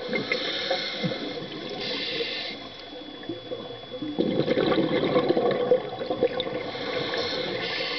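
Scuba diver breathing through a regulator underwater: hissing inhalations, then a burst of exhaled bubbles from about four to six seconds in, and another inhalation near the end.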